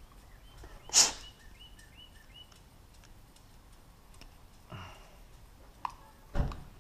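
Handling noises while a USB charging cable is plugged in: a sharp rustle about a second in, a small click and a low thump near the end. A short run of faint high chirps follows the rustle.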